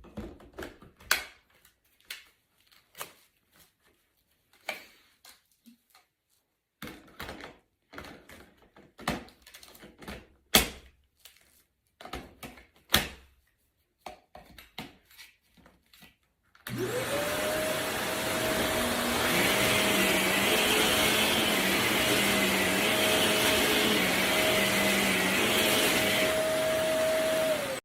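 A few scattered clicks and knocks, then about 17 seconds in a Shark upright vacuum cleaner switches on. Its motor comes up to a steady whine over the rush of air and runs until it cuts off at the end.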